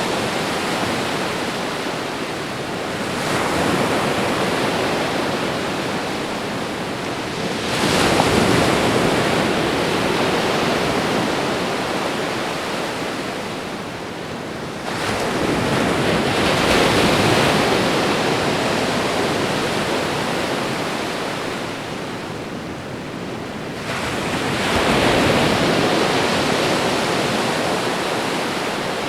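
Ocean waves breaking on a shore: a continuous wash of surf that swells four times, each surge rising quickly and then ebbing slowly over several seconds.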